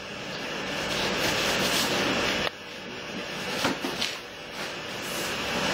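Mattress top sheet fabric and its straps rustling and rubbing as they are handled, in two swelling stretches with a sudden break about two and a half seconds in.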